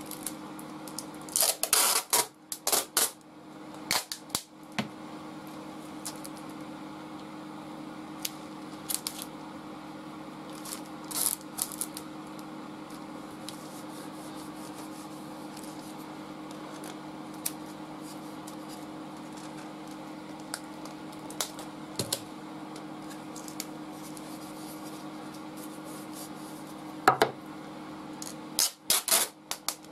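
Clear packing tape being pulled off the roll in short rasping rips, near the start, once in the middle and again near the end, with hands smoothing the strips flat over paper on wood in between. A steady low hum runs underneath.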